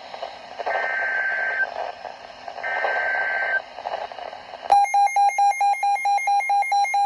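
A weather radio receiving an Emergency Alert System SAME header: three bursts of warbling data tones, about a second each, over radio static, signalling that a new alert is being issued. About four and a half seconds in, the receiver's alert alarm starts, an electronic beep repeating about three times a second.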